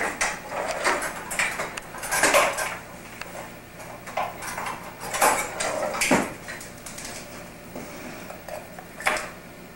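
Kitchen utensils and containers clattering and clinking as they are handled in a drawer and on a tiled counter, in irregular bursts of knocks for several seconds, with one last clink near the end.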